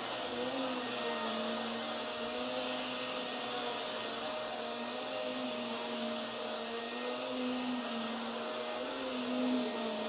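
Hoover WindTunnel Tangle Guard upright vacuum running on carpet with its brush roll on: a steady motor whine whose pitch wavers slightly as it is pushed back and forth.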